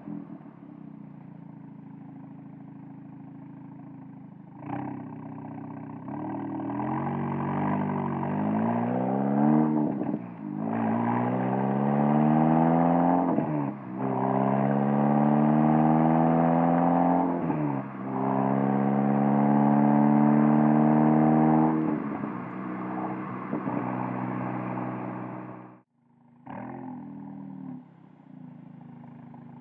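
A Volkswagen Golf R's turbocharged 2.0-litre four-cylinder heard through a Borla S-type valved catback exhaust, picked up at the rear bumper. The car accelerates through the gears: the exhaust note climbs in pitch and drops sharply at each upshift, about three times, then falls away as the car slows. Near the end the sound cuts out for a moment and returns as a low, steady cruising note.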